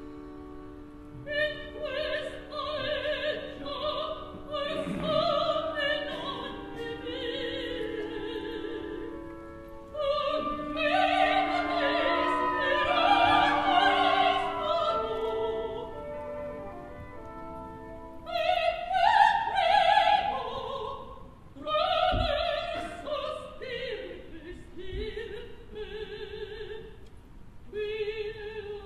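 A dramatic soprano singing an operatic aria in Italian with wide vibrato over a sustained orchestral accompaniment, in long phrases broken by short breaths.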